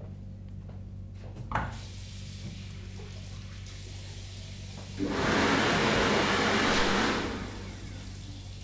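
A urinal flushing: a rush of water for about two seconds that tails off, over a steady low electrical hum. A short knock comes about one and a half seconds in.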